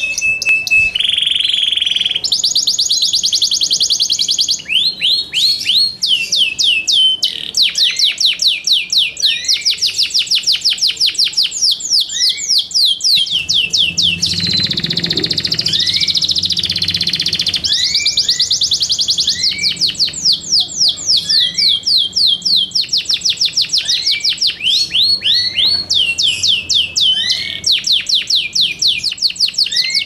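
Yorkshire canary singing a long, unbroken song of fast rolls of repeated sweeping notes, with a few held whistled tones between them.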